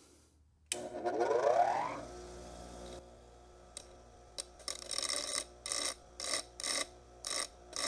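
Baldor bench grinder switched on: the motor spins up with a rising whine and settles into a steady hum. From about four seconds in, a hardened tri-wing screwdriver bit is touched to the spinning wheel in short grinding strokes, two to three a second, flattening its tip.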